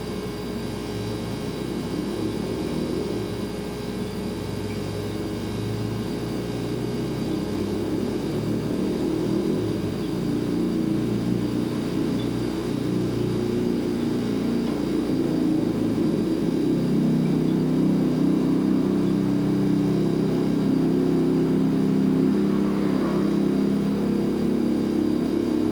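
Refrigerator compressor running: a steady low hum with a few held tones that shift partway through, slowly growing louder.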